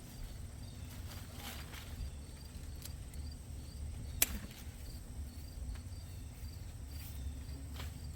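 Insects chirping steadily in a faint, even pattern, with a low background rumble and a few sharp clicks, the loudest about four seconds in.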